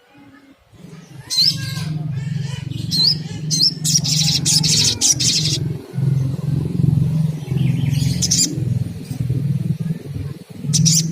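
Olive-backed sunbird calling: sharp high chirps and bursts of rapid, buzzy trills, over a low steady hum.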